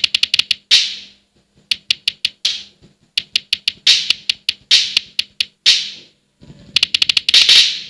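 Drum-pad app sounds played back through a Baseus Bowie E3 true wireless earbud held to a microphone: about twenty quick, irregular hits of hi-hat and cymbal sounds, several crashes ringing out for about half a second, with little bass. It is a test of the earbud's Bluetooth latency, which the reviewer judges low enough not to be felt.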